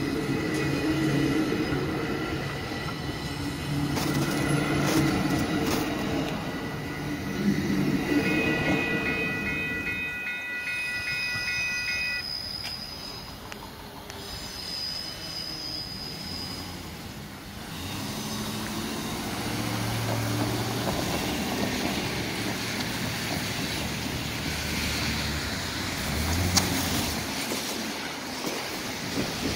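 Exo bilevel commuter train rolling past on the rails, with a steady high wheel squeal. About a third of the way in a level-crossing bell rings with a repeating ding, and the later part holds a lower rumble of the train and road traffic.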